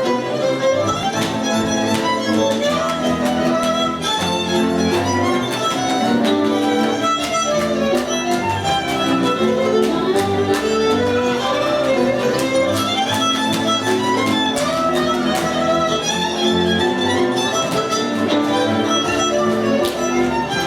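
A violin playing a moving melody over a string accompaniment with a bass line, with frequent sharp note attacks throughout.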